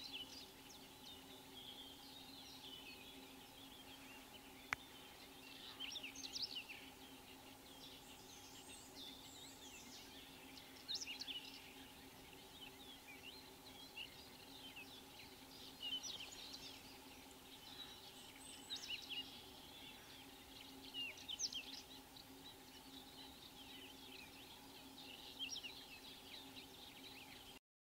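Several birds singing and chirping in a spring woodland: scattered short phrases and chirps over a steady low hum. There is one sharp click about five seconds in, and the sound cuts off abruptly just before the end.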